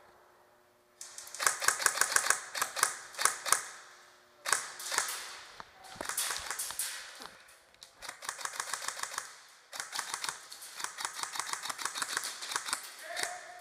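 Airsoft guns firing: rapid strings of sharp clicks and snaps, in about four runs of a few seconds each.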